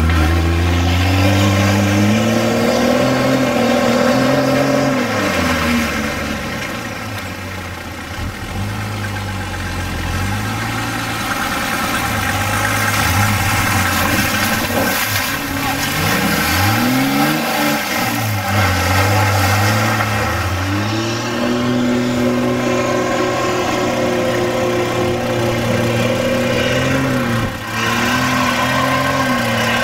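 Four-wheel-drive engine working under load off-road, its revs rising and falling several times as it is driven, then holding steadier for the last several seconds.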